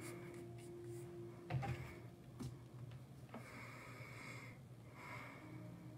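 Quiet room tone with a steady low hum, broken by a few soft knocks, the loudest about a second and a half in and another just under a second later.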